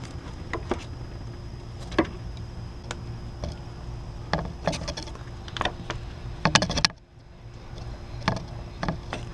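Irregular clicks and clinks of hand tools and small metal parts being handled in a car's engine bay, with a quick run of clicks about two-thirds of the way through, over a steady background hum.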